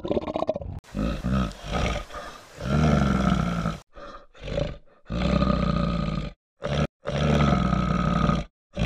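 A large animal's deep calls, repeated in several bursts of about a second each, with abrupt cuts between some of them.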